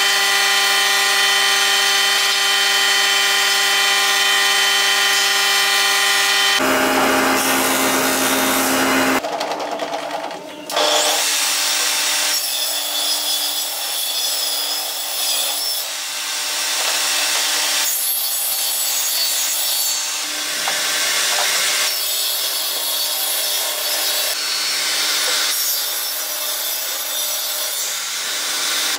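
Power tools cutting and shaping wood. A steady motor whine changes pitch about seven seconds in and dips briefly around ten seconds. Then comes a rough rasp of a tool working the wood, swelling and easing.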